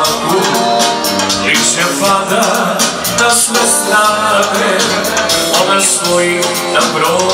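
A man singing into a handheld microphone over amplified instrumental backing music.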